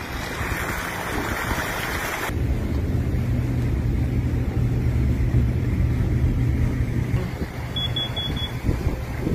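Wind buffeting the microphone for about two seconds, then an abrupt cut to the steady low rumble of a vehicle driving, heard from inside. Near the end there is a quick run of about five high beeps.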